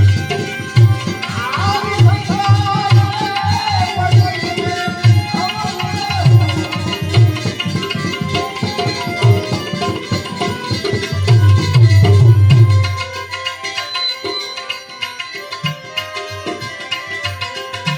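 Instrumental Gujarati bhajan music: Indian hand drums keeping a steady beat with a melody instrument over them. The deep drum strokes, about two a second, stop about 13 seconds in, leaving lighter percussion.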